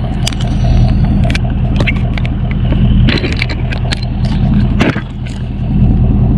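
A vehicle engine idling steadily, with scattered clicks and scrapes over it.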